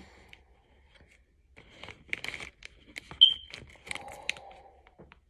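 Snack packaging being handled and torn open: plastic crinkling and tearing in short crackles and clicks, with a brief high-pitched squeak a little past three seconds in as the loudest sound.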